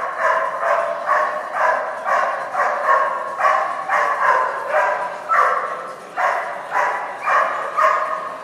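A dog barking over and over, about two barks a second, with a short break partway through.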